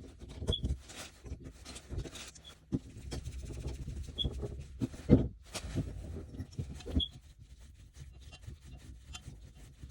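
Hands working on the shower trim and valve parts: scattered rubbing and scraping with irregular clicks and knocks, the loudest knock about five seconds in, and a few faint short squeaks.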